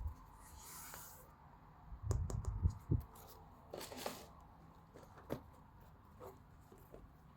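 Sneaker packaging being handled: two short paper rustles, a few dull knocks and scattered small clicks.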